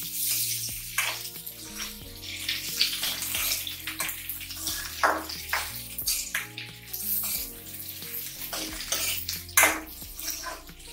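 Steel spoon scraping and knocking against a metal kadai as onions and green capsicum are stirred and sautéed in hot oil, with a light steady sizzle underneath. The spoon strokes come every second or so.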